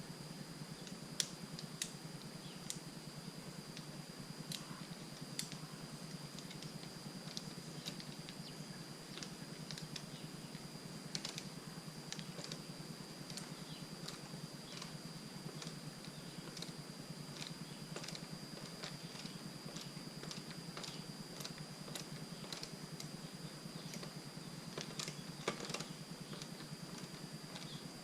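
Scattered light clicks and taps at an irregular pace, from hands fitting a handlebar kill switch and routing its wire on a dirt bike, with a cluster of sharper clicks near the end.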